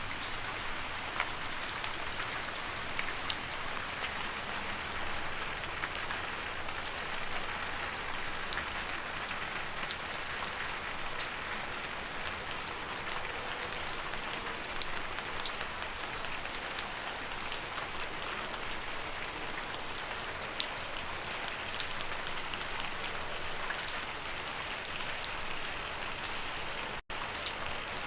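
Steady rain falling, an even hiss with many individual drops ticking sharply through it. Near the end the sound cuts out for an instant and comes straight back.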